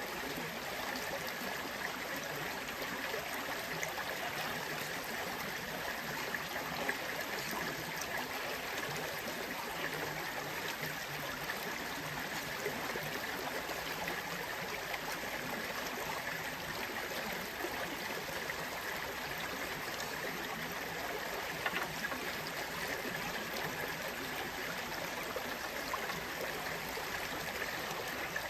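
Shallow creek water running steadily over rocks, with a few small clicks.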